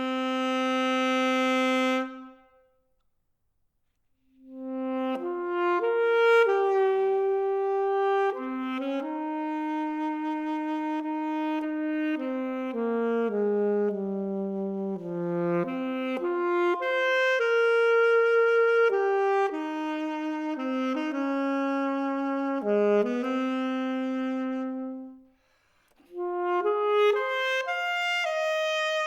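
Unaccompanied saxophone playing a slow solo piece. A long held note fades out about two seconds in, and after a short pause come phrases of sustained notes joined by stepwise runs. There is a brief break near the end, then a quicker run.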